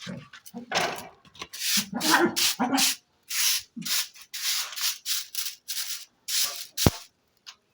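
A broom sweeping a floor in short scraping strokes, about two a second, with one sharp knock near the end.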